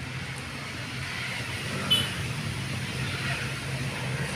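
Steady low hum of road traffic, with one short sharp click about two seconds in.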